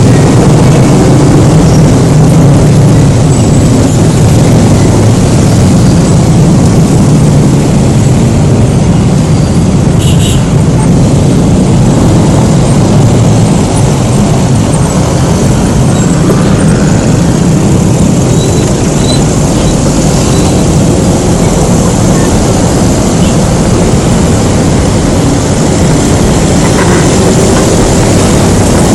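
Loud, steady wind rumble on a helmet-mounted phone microphone while riding a Honda Scoopy motor scooter, with the scooter's engine and road noise mixed in.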